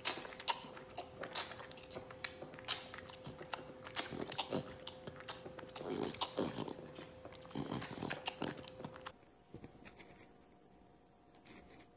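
Tiger cub sucking on a milk bottle: a quick run of wet smacking and sucking clicks, with a faint steady hum beneath, stopping about nine seconds in.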